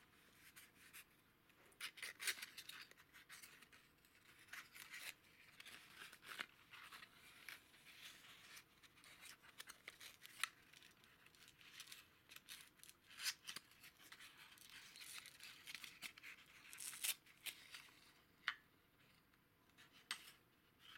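Small cardboard valve box being opened by hand: faint rustling and scraping of card with scattered sharp clicks as the end flap is lifted and the inner card packing is pulled out. The handling thins out to a few clicks near the end.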